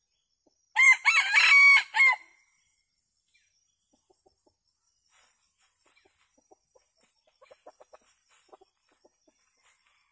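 A junglefowl rooster crows once, a short, loud crow about a second in, used as a decoy call to draw wild junglefowl. Later come faint short clucks and light rustles in the leaf litter.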